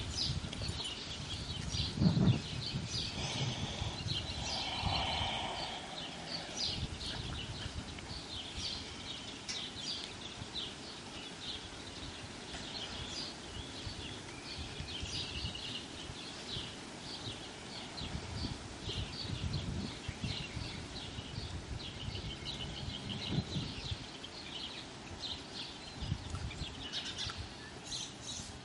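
Outdoor ambience of small birds chirping over and over, over low rustling and scuffling, with one loud thump about two seconds in.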